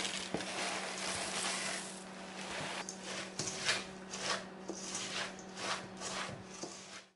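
Rice Krispies poured from the box into a stainless steel bowl with a rustling patter, then stirred into melted chocolate with a wooden spoon: a run of short scraping, crunching strokes, about two a second, starting a couple of seconds in.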